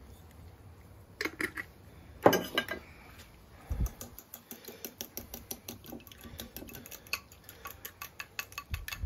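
A few clicks and a sharp knock, then a fork beating eggs in a ceramic bowl: a fast, even run of clicks of the fork against the bowl, several a second.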